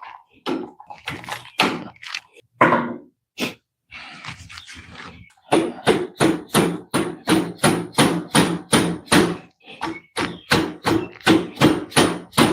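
Light mallet taps on the steering coupler and rack, seating the coupler on the rack shaft without setting it permanently. A few scattered taps come first, then a steady run of about three taps a second, each ringing briefly.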